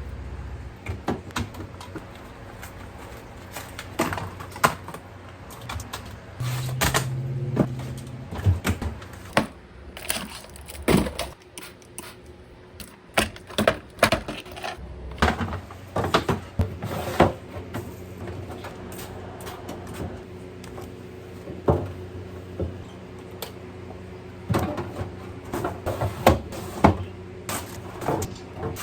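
Irregular knocks, clicks and clatter of containers, shelves and fridge parts being handled while a refrigerator is cleaned out.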